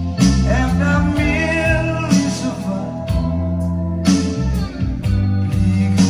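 Music with a singing voice over a bass line and guitar, with a steady beat.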